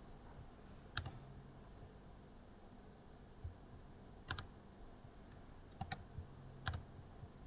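A few faint, isolated computer mouse clicks, a second or more apart, over a faint steady low hum.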